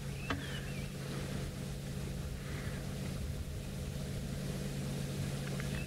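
Steady low hum over a light background hiss, with a faint short chirp about a third of a second in and another near the end.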